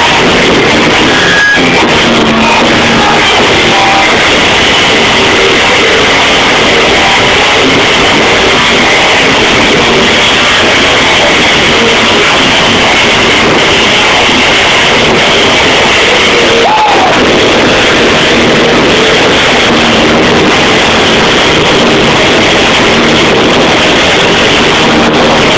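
Live rock band playing loudly and without a break, guitar to the fore.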